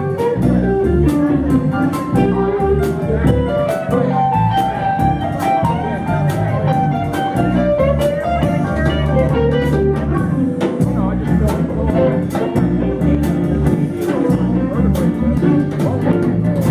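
Blues music played on guitar, with a melody line over steady bass notes and an even beat.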